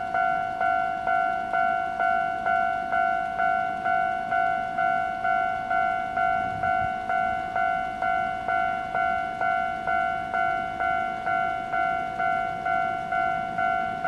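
Japanese railway level-crossing alarm ringing: an electronic bell striking steadily about twice a second, each strike dying away quickly. It signals that a train is approaching and the crossing is closed.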